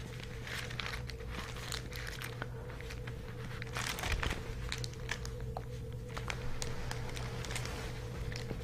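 Bible pages being leafed through, a run of irregular soft crinkles and rustles, over a faint steady hum.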